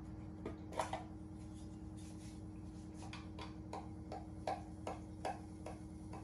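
Soft clicks and taps from a small cardboard box of asafoetida (hing) being opened and handled. There are a few scattered clicks about a second in, then a run of light, fairly even taps, about two or three a second, through the second half.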